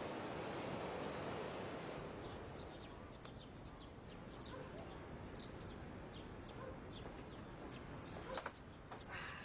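Surf washing onto a pebble beach, fading over the first couple of seconds, then many small birds chirping with short, high calls. Near the end there are a couple of louder, sudden sounds.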